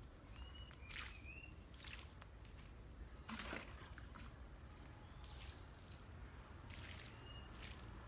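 Water poured by hand onto garden soil and plants in irregular short splashes and trickles, the biggest about three seconds in. A bird gives a few short rising chirps.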